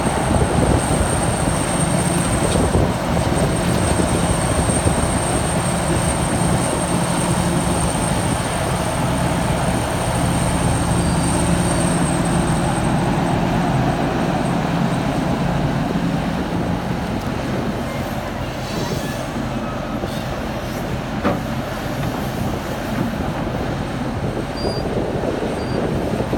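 Liebherr 974 hydraulic excavator's diesel engine running under load as the machine swings and digs, a steady machine drone with a faint high whine over the first half. The engine tone eases a little about two-thirds through, and there is one sharp knock near the end.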